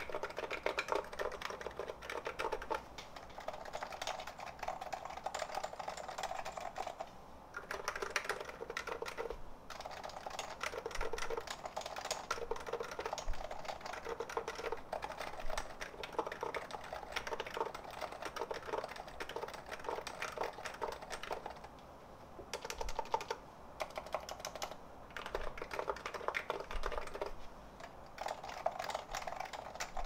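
Steady typing on two stock, unlubricated electrostatic-capacitive keyboards: a Leopold FC660C Low Noise with silenced Topre switches and a Niz Atom 68, the typist moving from one board to the other. Rapid runs of soft key clicks, broken by a few short pauses.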